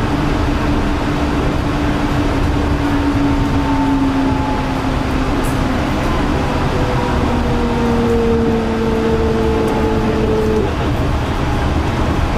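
Yurikamome rubber-tyred automated guideway train running, a steady loud rumble with a motor whine that sinks slowly in pitch; a second whine comes in about seven seconds in and cuts off suddenly near the end.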